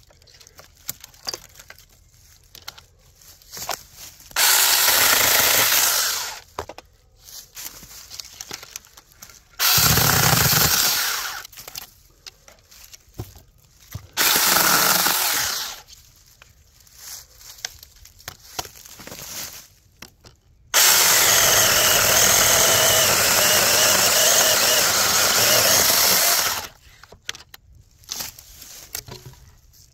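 Battery-powered Tomyvic 6-inch cordless mini chainsaw running in four bursts as it cuts into a branch: three short runs of about two seconds, then one long run of about six seconds. Small clicks and rustles fall in between.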